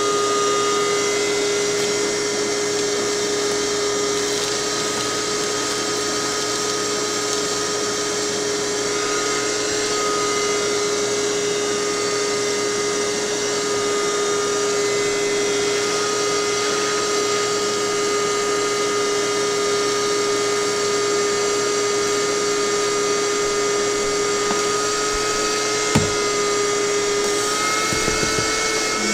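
Wet/dry shop vacuum running steadily, a constant motor whine over airflow hiss, with a brief knock near the end.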